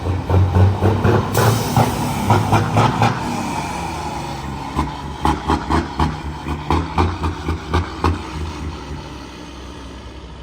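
A heavy truck running, with uneven low thumping and repeated clanks and rattles that die down near the end.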